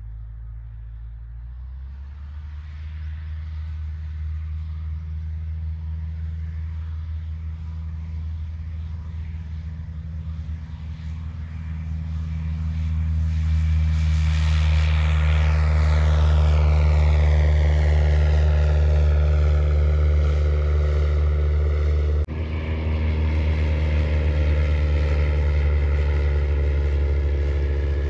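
Small propeller airplane's piston engine at takeoff power during the takeoff run and climb-out, growing louder as the plane approaches and passes, with a sweeping, phasing shift in the engine note as it goes by. A brief break in the sound comes about three-quarters of the way through.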